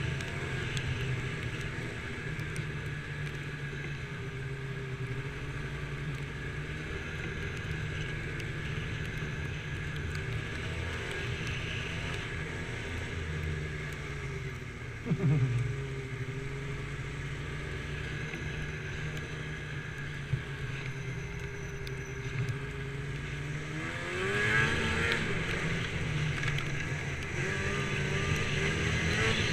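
Snowmobile engine running steadily under the rider, heard on board. Its pitch dips sharply and climbs back about halfway through, then rises as the engine revs up a few seconds before the end.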